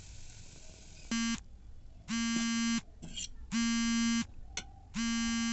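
Electronic buzzer sounding a short blip, then three longer, low, raspy buzzes at a steady pace of about one every one and a half seconds.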